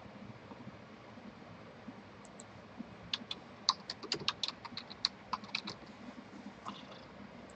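Typing on a computer keyboard: a quick run of keystrokes starting about three seconds in and lasting about four seconds.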